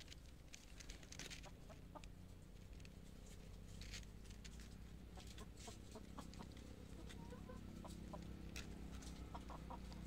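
Brahma chickens clucking softly, short quiet calls that come more often in the second half, over a faint steady low hum.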